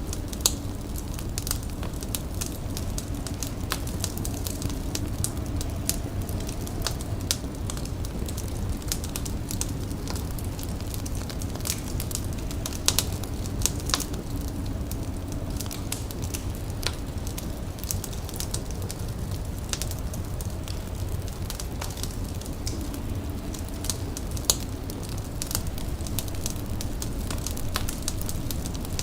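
Indoor fire crackling: irregular sharp snaps and pops scattered over a steady low rumble.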